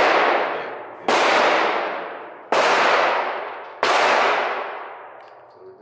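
Gunshots on an indoor shooting range: three single shots, each about a second and a half apart, each with a long ringing decay, following the dying tail of one fired just before.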